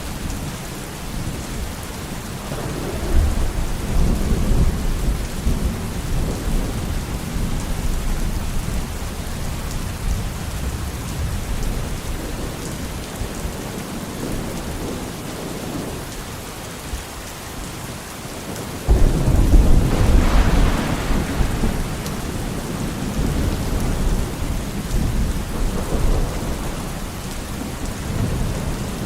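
Steady rain with rolling thunder. A low rumble swells a few seconds in, and a louder thunderclap breaks about two-thirds of the way through, rumbling on for several seconds.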